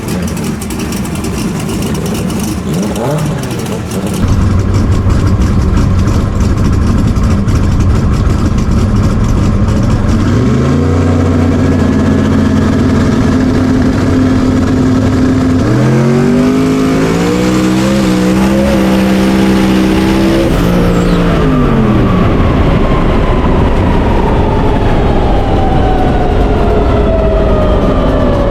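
Drag-racing car engine revving loudly: revs held steady for several seconds, then raised and wavering for several more. Near the end comes a long, slowly falling whine.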